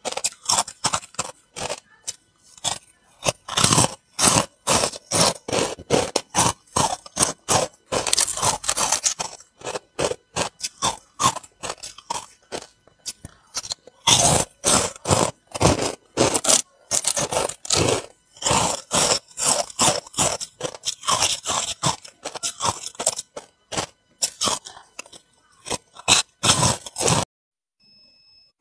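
Close-miked biting and chewing of white carbonated ice balls: rapid, loud, crisp crunches one after another, stopping about a second before the end.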